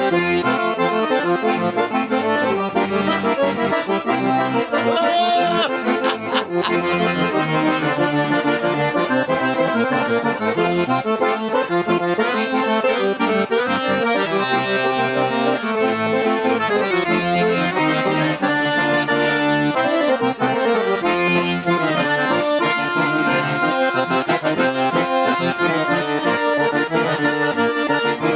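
Accordion playing a lively instrumental tranco, a southern Brazilian gaúcho dance tune, with sustained chords under a running melody.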